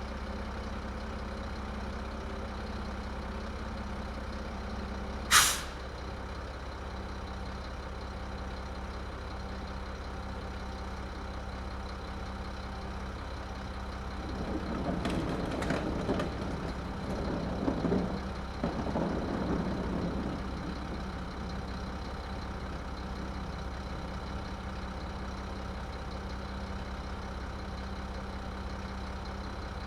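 Garbage truck engine idling steadily. About five seconds in there is a short, sharp hiss of air-brake release. Later, for about six seconds, there is a louder stretch of clanking and knocking from the truck's machinery before it settles back to idle.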